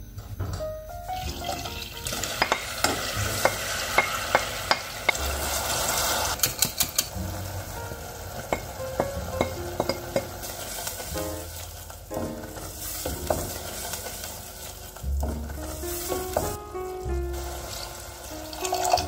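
Sliced vegetables sizzling in a stainless steel saucepan while a wooden spoon stirs them. A run of sharp taps and scrapes against the pan comes in the first half, where the sizzle is also loudest.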